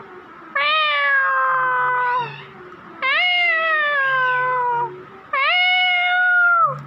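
Caged rose-ringed parakeet imitating a cat's meow: three long, drawn-out meows, each sliding slightly down in pitch, with short softer chirps between them.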